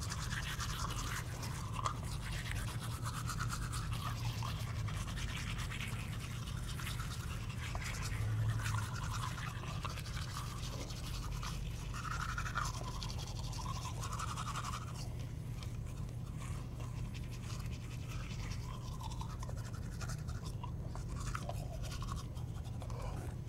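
Manual toothbrushes scrubbing teeth, several people brushing at once: a steady, rapid scratchy bristle sound.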